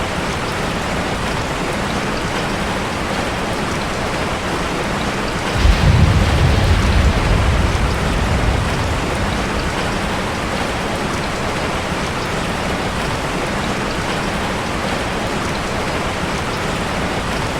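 Heavy rain pouring steadily, with a single low rumble of thunder about five and a half seconds in that fades out over roughly three seconds.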